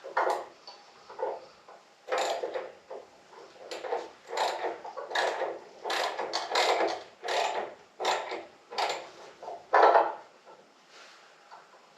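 Scissor-lift platform jack being cranked up under a motorcycle's front end: a run of ratcheting strokes, about one to two a second, that stops near the end.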